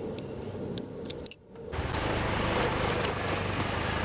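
A few light clicks as a helmet's strap is handled. Then, about a second and a half in, the riding noise of a Honda motor scooter starts: a steady low engine hum under wind and road noise.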